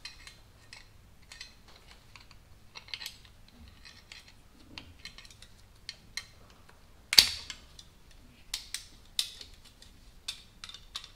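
Small metal clicks and taps of a hand brake-line flaring tool being worked loose from a freshly flared steel brake line, with one much louder sharp metal clank a little past the middle.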